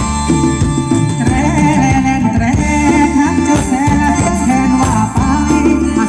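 Live Thai ramwong dance-band music with drums and bass keeping a steady beat, and a wavering melody line that comes in about a second in.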